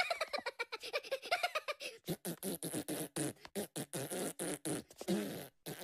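Minion cartoon voice effect: a fast run of short, sputtering vocal pulses, several a second, like a mocking giggle or raspberry after a wrong answer.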